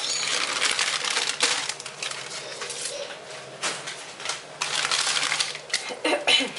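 Baking paper rustling and crinkling as it is handled and peeled off a rolled sponge cake, with a string of sharp crackles; it goes quieter for a moment in the middle and crackles sharply again near the end.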